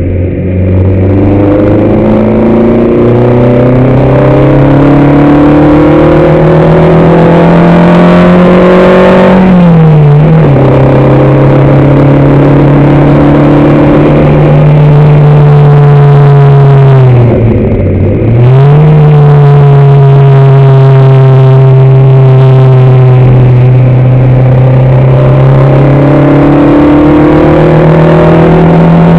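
Race car engine heard on board, running hard under load. Its pitch climbs slowly, drops sharply twice, about ten seconds in and again around eighteen seconds, as the driver lifts or changes gear, then settles and climbs again.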